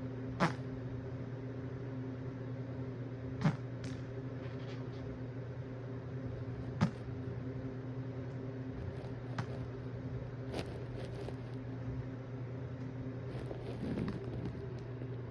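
Steady low mechanical hum, with five sharp clicks spread through it and a short soft swell of low sound near the end.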